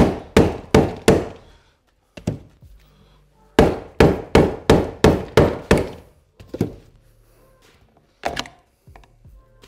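Mallet blows on a screwdriver wedged into a BMW N52 electric water pump, tapping hard to split the pump apart. Two quick runs of sharp strikes, about two and a half a second, then a few single strikes near the end.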